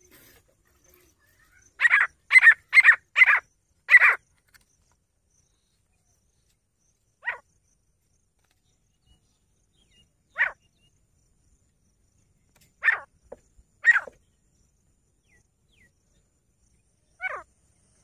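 An animal's short, loud calls: a quick run of five about two seconds in, then single calls every few seconds.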